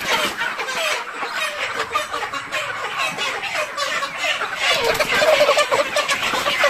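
A flock of broiler chickens crying out and clucking in alarm as they are caught by hand, many calls overlapping, a little louder about five seconds in.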